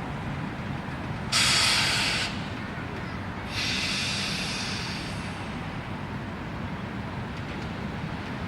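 EP07 electric locomotive standing with a steady low rumble while compressed air hisses out twice: a loud short blast about a second and a half in, then a longer hiss about two seconds later that fades away.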